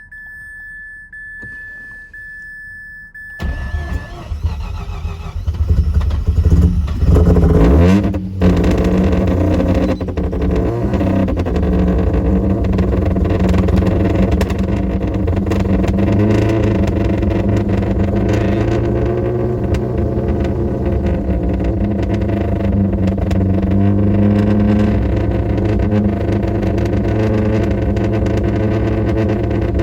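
Mazda RX-8's swapped 13B-REW rotary engine cranked and catching about three seconds in, revving up with a rising pitch for a few seconds, then settling into steady running. The engine is being brought back to life with starter fluid after being flooded on a cold start. A steady high electronic tone sounds before it fires.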